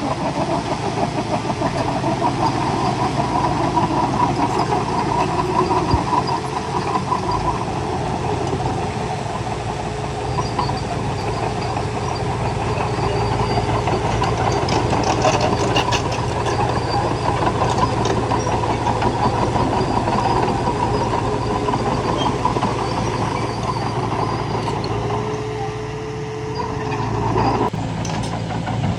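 Heavy diesel earthmoving machinery running steadily, with a few metallic clanks about halfway through.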